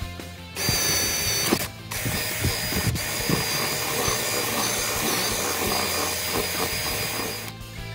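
Makita 18V cordless drill boring through a wooden board, its motor giving a steady high whine over the noise of the bit cutting. It stops briefly about two seconds in, then drills again until near the end.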